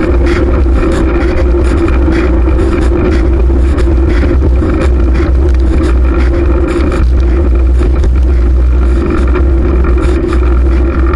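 Wind buffeting the microphone and tyre noise from a moving fixed-gear bicycle: a loud, steady rumble with a flutter in the upper range.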